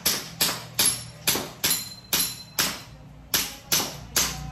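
KJ Works CZ Shadow 2 green-gas blowback airsoft pistol firing a rapid string of about ten semi-auto shots, two to three a second, each a sharp crack of the shot and slide, with a brief pause about two and a half seconds in.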